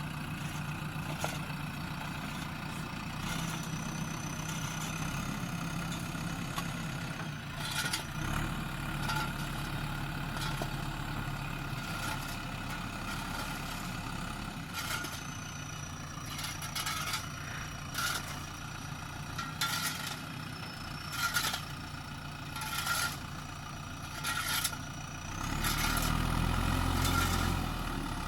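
Backhoe loader's diesel engine running steadily, with scattered clanks and knocks and, at times, a thin high whine. The engine grows louder and deeper for a few seconds near the end, as if working under load.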